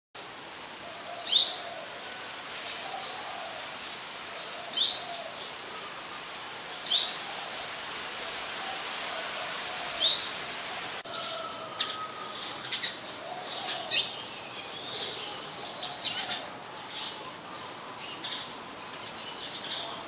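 Brown-throated sunbird calling: four sharp, high, upslurred notes a few seconds apart. About halfway through, they give way to a quicker, irregular run of short high chirps.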